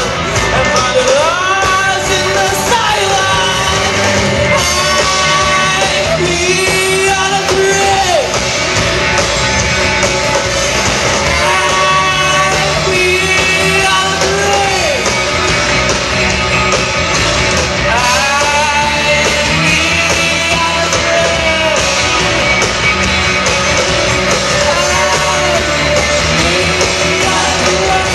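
A rock band playing live, with a singer's voice carrying the melody over the band.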